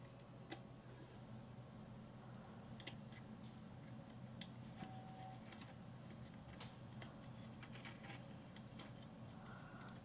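Faint, scattered clicks and scrapes of wire and resistor leads being handled and bent around the screw terminals of a doorbell chime, over a faint steady low hum.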